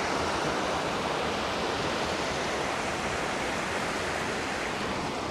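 Creek water rushing down a small rocky cascade in a steady, even roar.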